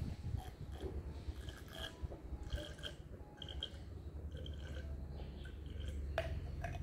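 A person drinking from a glass in steady gulps, heard as a run of faint swallowing clicks, with a low steady rumble underneath that grows louder toward the end.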